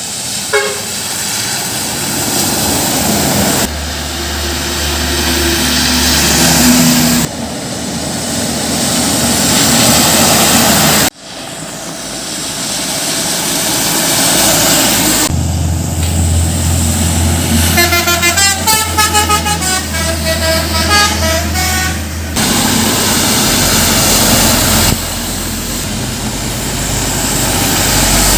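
A string of short roadside clips of heavy trucks and buses driving past, engine and road noise changing abruptly at each cut. In the second half a bus's telolet horn plays a quick tune of rapidly changing notes for about four seconds over a deep engine rumble.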